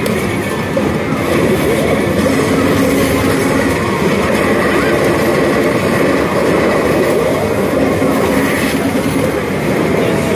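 Pachislot machine playing a steam train running sound effect: steady rolling clatter with some wheel squeal.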